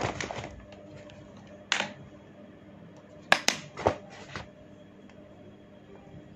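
Hair cracking: tufts of scalp hair pulled taut snap with sharp crackling pops, in several quick groups. One group comes at the start, one about two seconds in, and a run of the loudest cracks between three and a half and four and a half seconds.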